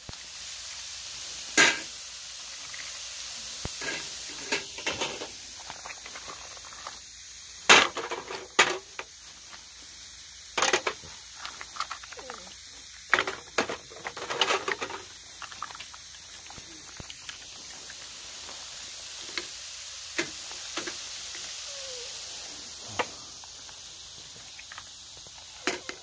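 Steady sizzling hiss of food cooking on a hot griddle, broken by sharp clacks and knocks of utensils and oyster shells being handled and dropped into a steamer pot.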